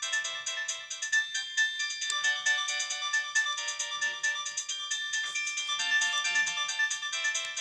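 Samsung E1202i mobile phone playing a ringtone: a continuous electronic melody of quick, short, bright notes.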